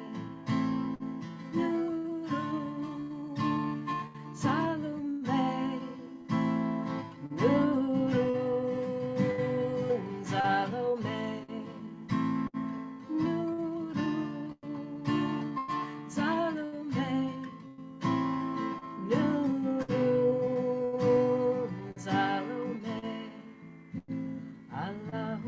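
Acoustic guitar strumming slow chords under a singing voice that carries a slow chant melody with long held notes.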